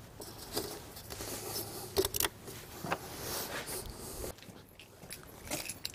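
Light, scattered clicks and scrapes of plastic caps being handled and screwed on at the engine's oil filler, a handful of sharp ticks spread over the few seconds.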